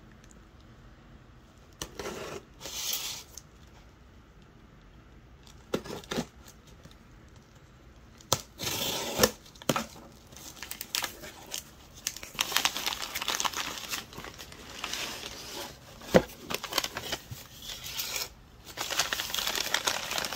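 Packing tape being torn off a small cardboard box, followed by the crinkling of kraft paper packing as it is pulled out. Mostly quiet for the first several seconds with a few short scrapes, then from about eight seconds in a busy run of ripping and rustling that goes on to the end.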